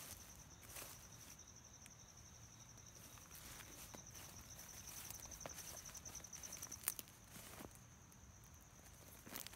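Slow footsteps through dry grass and weeds, scattered soft crunches, over a steady high insect trill.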